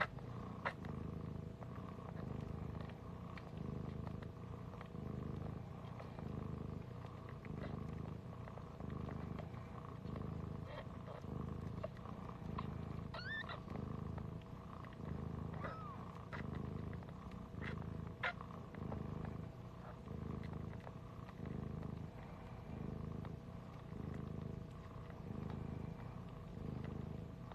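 Siberian mother cat purring steadily at close range while lying with her newborn litter just after giving birth, the purr swelling and fading with each breath about once a second. A couple of brief, faint high squeaks come about halfway through.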